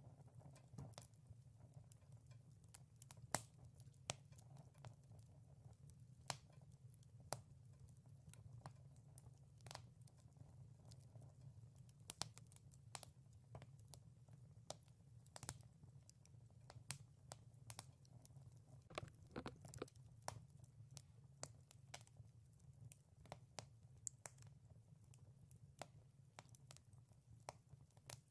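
Quiet wood fire crackling, with sharp irregular pops and snaps over a steady low rumble.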